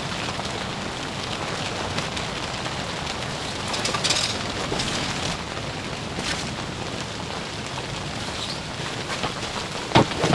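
Steady rain falling, with a sharp knock near the end.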